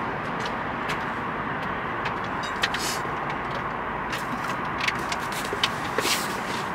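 Steady rumbling noise of a car or nearby traffic, with a few faint, short knocks and clicks.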